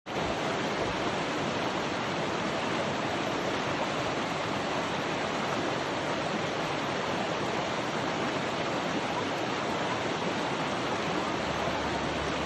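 Forest stream running: a steady rush of flowing water that cuts in abruptly at the start.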